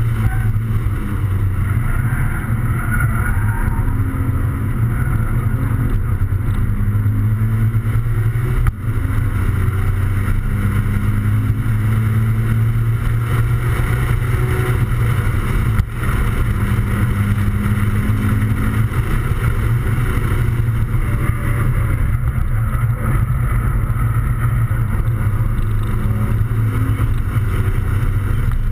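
Toyota 86/Scion FR-S 2.0-litre flat-four engine heard from inside the cabin under hard track driving, its pitch stepping up and down with the revs over a steady drone of wind and road noise. The sound dips briefly twice, at about 9 and 16 seconds in.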